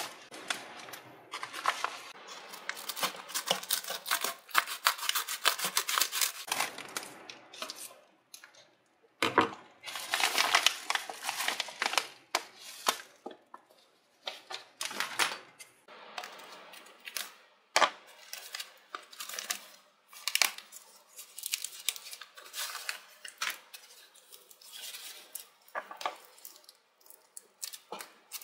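Paper packaging rustling and tearing as a padded mailer and its paper wrapping are opened by hand, with dense crackling in the first half and scattered sharper crackles and clicks after. Scissors snip into foam wrap near the end.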